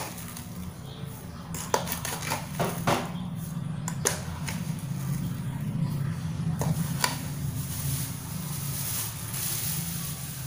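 A spoon stirring sugar into simmering tea in a saucepan, knocking against the pan in several sharp clinks, over a steady low hum.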